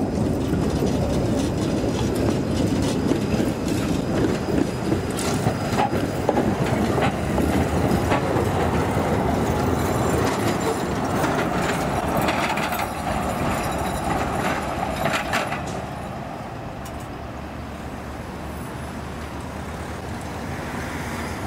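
E1 tram passing close by: loud rumble of its wheels on the rails, with clicks over the rail joints, dying away about three quarters of the way through.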